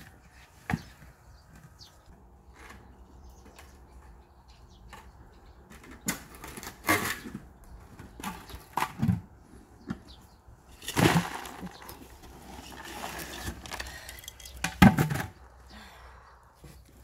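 Rustling, scraping and a few dull knocks as a large kalanchoe is worked out of its pot and its root ball set down in a cardboard box, the loudest knock near the end.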